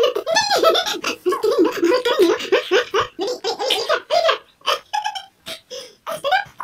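Baby laughing and giggling in short repeated bursts while being tickled and played with.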